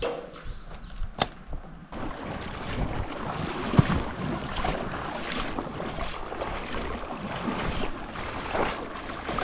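Footsteps wading through shallow creek water, with irregular splashing and sloshing.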